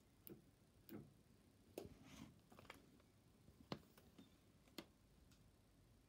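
Near silence: quiet room tone with about eight faint, irregular clicks, the loudest a little past the middle.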